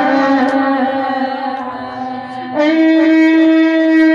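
Slow, mournful Arabic lament melody of long held notes, with a step up to a higher, steadier held note about two and a half seconds in.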